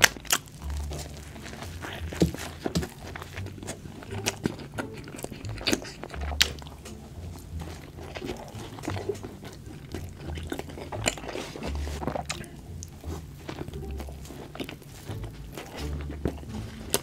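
Close-miked eating: repeated crunchy bites and wet chewing, with many short crackles and smacks throughout.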